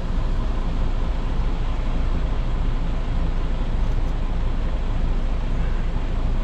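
Semi-truck's diesel engine idling steadily, a low even rumble.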